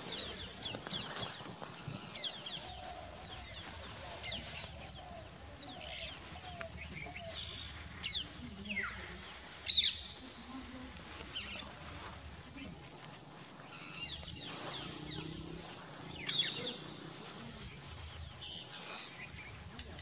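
Wetland field ambience: many short, high bird chirps scattered through, over a steady high insect-like hiss. The louder chirps come about a second in, near 2 s, 8 s, 10 s, 12 s and 16 s.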